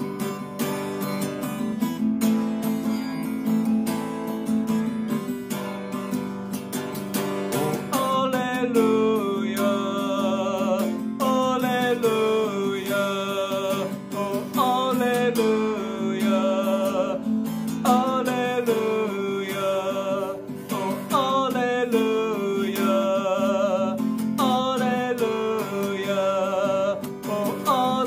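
A man singing a hymn to his own strummed acoustic guitar. The voice is soft at first and comes in strongly about eight seconds in, in repeated falling phrases with vibrato over steady strumming.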